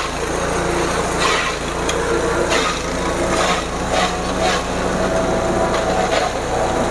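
Engine-driven forage chopper running steadily while plant stalks are fed into it. Its blades give irregular bursts of chopping every half second to a second over the constant hum of the motor.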